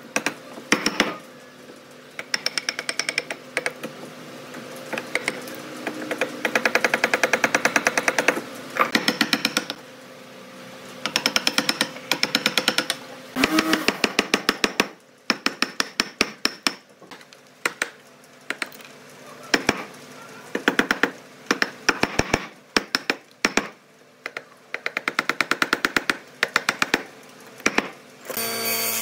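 Wooden mallet striking a steel chisel in rapid bursts of sharp knocks with short pauses between, chopping out a joint in a wooden board.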